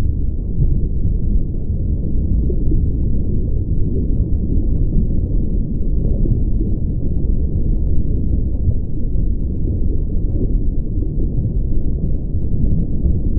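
Steady, muffled low rumble with no distinct events in it.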